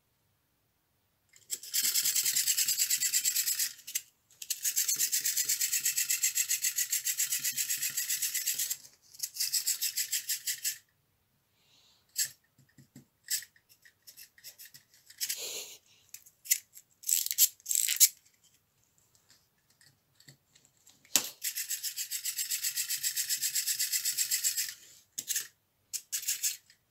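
Clockwork mechanism of a small wind-up toy (a rabbit riding a duck) running in stretches of a few seconds: a fast, even ticking whir of the spring-driven gears. Scattered separate clicks and knocks come in between, in the middle of the stretch.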